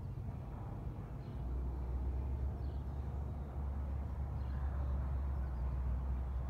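Jet engines of an Airbus A319 airliner taxiing in toward the gate, a steady low rumble that grows louder about a second and a half in and then holds.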